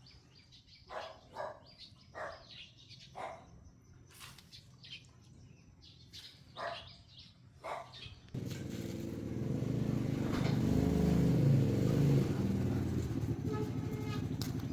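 Short bird chirps, then a motor starts abruptly about eight seconds in and runs loudly, swelling a little before easing.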